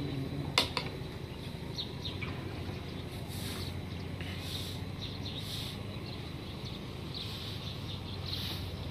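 Outdoor ambience with birds chirping in the trees; from about three seconds in, a short high call repeats about once a second. A single sharp click sounds just over half a second in.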